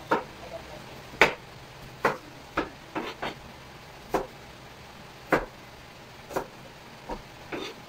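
Kitchen knife chopping vegetables on a plastic cutting board: about eleven sharp knocks at an uneven pace, roughly one to two a second.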